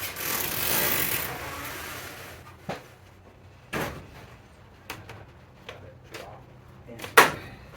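A scraping, sliding sound for about two and a half seconds as greenhouse parts are handled, then scattered knocks and taps against the frame, the sharpest one near the end.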